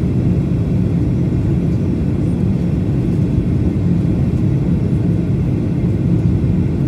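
Steady low rumble inside an airliner cabin from the jet engines and the airflow over the fuselage, during the descent toward landing.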